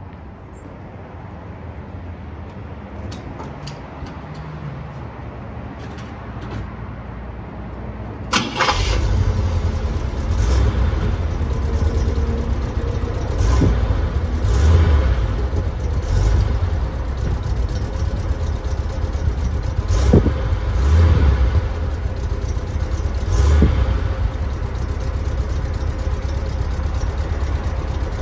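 1968 Cadillac Eldorado's 472 V8 heard at the exhaust, starting with a sudden burst about eight seconds in after a few faint clicks. It then runs with a deep rumble and is revved briefly several times.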